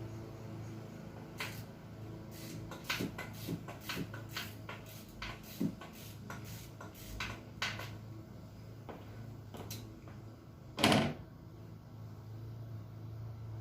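Hand tools clicking and knocking against metal in irregular strokes, with one louder clatter near the end, over a steady low hum.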